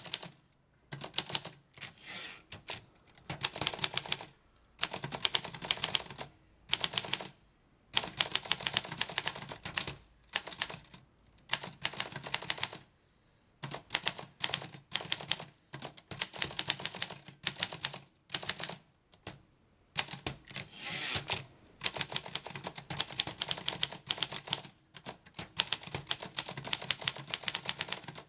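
Groma Kolibri manual portable typewriter being typed on: runs of rapid keystrokes as the type bars strike the platen, broken by short pauses.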